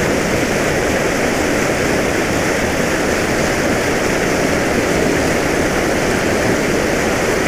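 Water gushing out of a large spill pipe into a river, a loud, steady rush.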